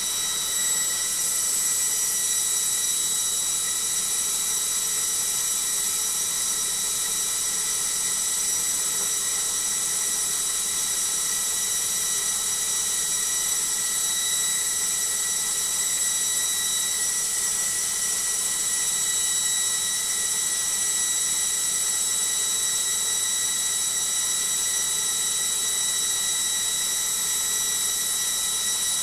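Logik washing machine on a noisy high-speed spin, its motor giving a loud, steady high-pitched whine over the rush of the drum.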